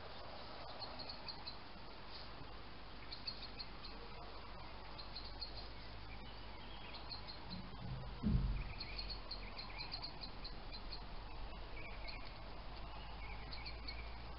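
Faint high chirping in short, rapid clusters, repeating on and off, over a low steady hum; a single low thump a little past the middle is the loudest sound.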